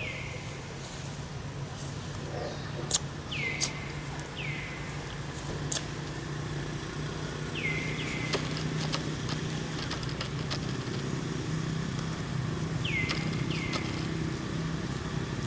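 A steady low motor hum, like a vehicle engine running, with about seven short downward-sweeping chirps and a few sharp clicks over it.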